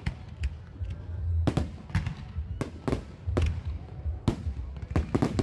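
Aerial fireworks bursting overhead: an irregular run of sharp bangs and crackles, roughly every half second, over a low rumble.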